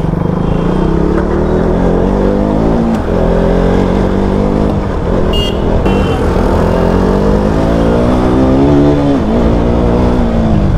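Motorcycle engine running while riding slowly through traffic, its pitch rising and falling gently with the throttle. Two brief high beeps sound around the middle.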